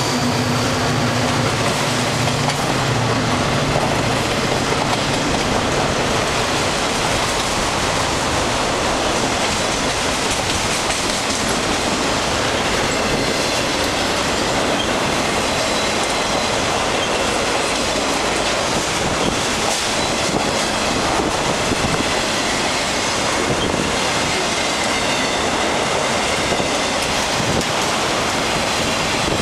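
Freight cars of a long train rolling past at speed: a steady, loud rush and rumble of steel wheels on rail, with faint thin wheel squeal. A low locomotive engine hum fades out in the first few seconds.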